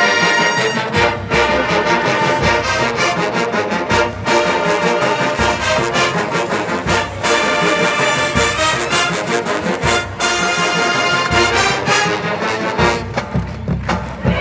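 Marching band playing: brass over a steady percussion beat.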